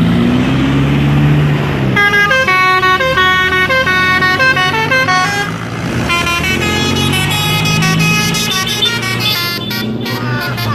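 Telolet musical horns on a bus playing a quick tune of short stepped notes, starting about two seconds in and pausing briefly around the middle before carrying on. A bus engine runs underneath, rising in pitch at the start.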